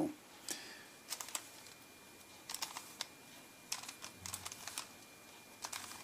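Plastic 3x3x3 Rubik's cube being turned by hand: quick clicking and rattling of the layers in about six short bursts, the turns of an eight-move corner piece series.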